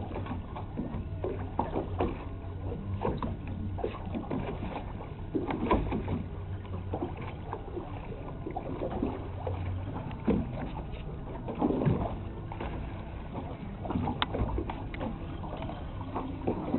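Boat engine running slowly with a steady low hum, with water slapping against the hull in irregular splashes.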